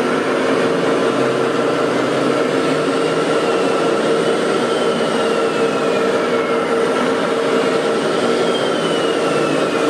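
A steady mechanical whir with a constant whine. A thin, higher whine slides down in pitch twice, about three seconds in and again near the end.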